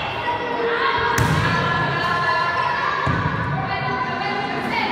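A volleyball bouncing on a gym floor, thudding twice about two seconds apart with a sharp smack just before the first, echoing in a large sports hall over the voices of children.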